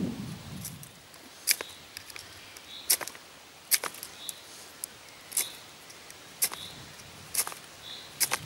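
A fire steel struck against its striker over kindling to light a campfire: about eight short, sharp scraping strikes, roughly one a second.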